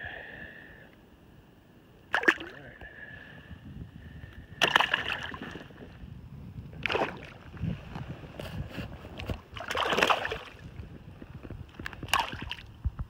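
Water splashing beside a kayak in five or six short bursts a few seconds apart, over low water noise.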